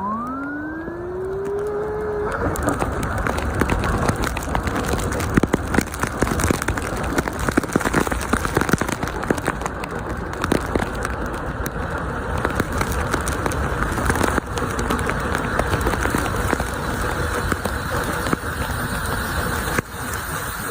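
A motor spinning up, its pitch rising for about two seconds, then running on with a steady rush of air and a dense, rapid rattling and crackling of debris as the dryer vent is blown out.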